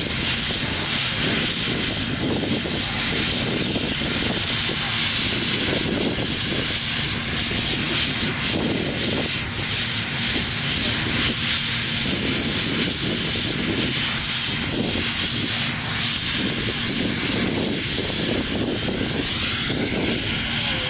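Westland Whirlwind HAR.10 helicopter running on the ground: a steady engine and rotor noise with a high-pitched whine that stops about three-quarters of the way through.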